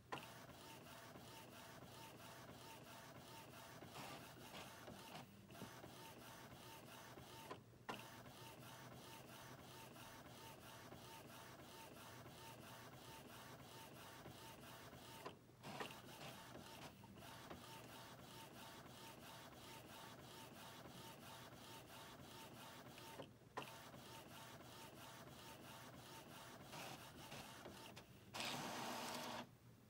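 Epson WorkForce ET-4750 EcoTank inkjet printer printing its vertical alignment test pattern: the print head shuttles steadily across the page, with a few brief pauses. A louder motor whirr comes near the end as the sheet advances.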